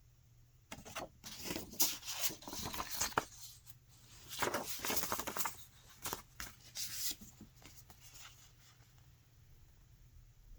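Paper rustling and crinkling as the pages and paper pieces of a hardbound book are handled. It comes in uneven bursts from about a second in and dies away after about seven seconds.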